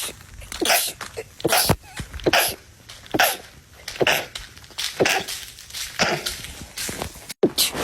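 A person sneezing over and over in rapid succession, each sneeze stifled into a short, sharp burst, roughly one a second.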